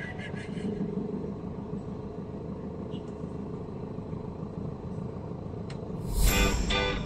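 Steady low rumble of a vehicle's engine heard from inside its cabin. About six seconds in, loud guitar music cuts in over it.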